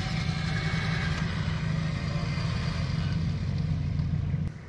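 Off-road 4x4 engine running steadily, cutting off abruptly near the end.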